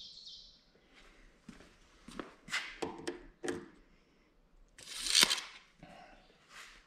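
Handling sounds while measuring with a steel tape measure: several short scrapes and taps, then a louder half-second rush about five seconds in as the tape blade retracts into its case.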